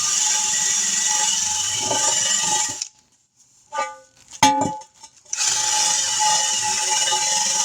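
Background music that cuts out for about two and a half seconds midway and then comes back. During the break a couple of short ringing clicks are heard.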